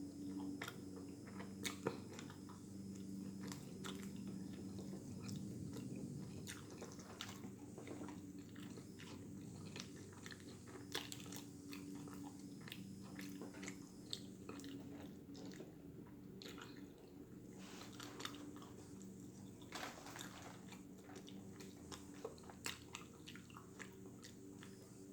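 Close-up chewing and biting of a Cheetos-coated chicken sandwich, with irregular crisp crunches.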